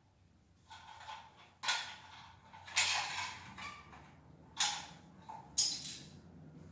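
Plastic parts of a toilet cistern's flush mechanism creaking and scraping as they are handled and fitted together, in a few short bursts, four of them louder, with quieter rustles between.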